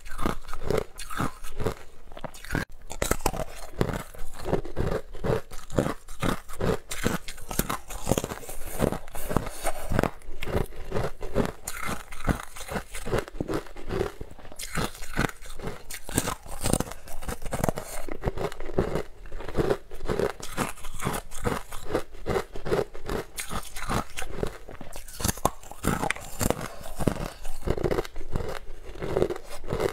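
Close-miked crunching and chewing of a frozen purple ice bar: a steady run of crisp bites and crunches, one after another.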